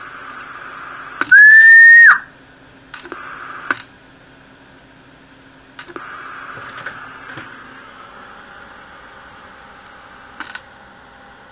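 Radio transceiver's receiver hiss that cuts out and back in at sharp clicks, several times. A little over a second in comes one loud, steady electronic tone lasting under a second.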